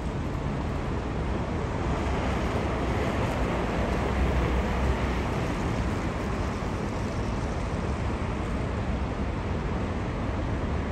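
Steady city traffic noise: a low rumble of cars driving on a busy street, swelling a little a few seconds in.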